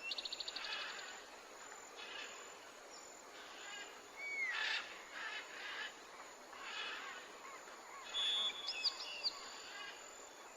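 Assorted bird calls over a faint outdoor background hiss: a rapid trill at the start, a short sliding whistle about halfway through, and a held note with a few quick high whistles near the end.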